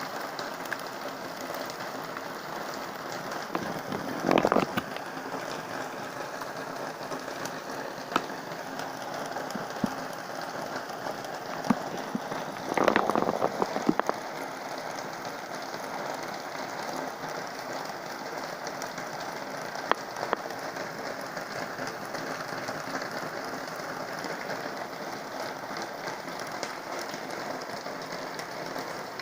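Heavy rain falling steadily, with scattered sharp drop ticks and two brief louder splashes or bursts, about four seconds in and again around thirteen seconds.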